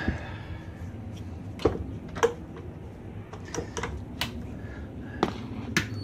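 Sharp metallic clicks and knocks, about eight of them at irregular spacing, as steel knife blades are set into an electric heat-treatment kiln and its door is closed.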